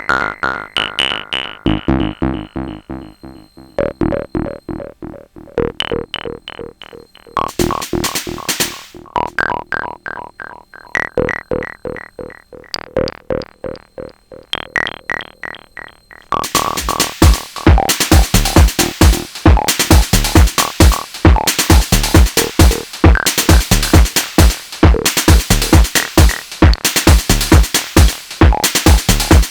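Electronic techno pattern from a Sonic Potions LXR-02 digital drum machine: rhythmic pitched percussion hits, with a heavy kick drum coming in about halfway and driving a steady beat from then on.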